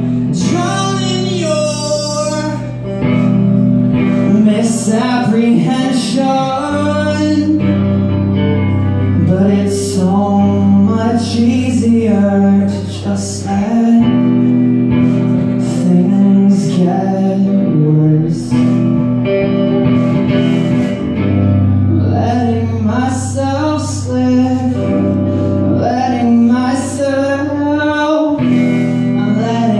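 Live rock band playing: a male vocalist sings over electric guitar, electric bass and a drum kit with cymbal hits.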